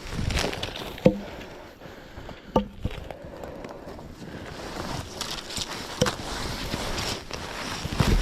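Four sharp wooden knocks, each with a short hollow ring, about a second, two and a half, six and eight seconds in, over wind and rustling, as pieces of cut birch are handled; the chainsaw is not running.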